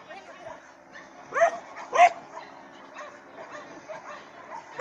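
Dog barking: two barks about half a second apart, around a second and a half in, and another at the very end.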